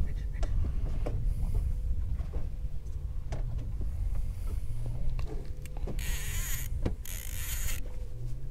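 Conventional lever-drag fishing reel being worked, its mechanism clicking irregularly over a steady low rumble. Two brief loud hisses come about six and seven seconds in.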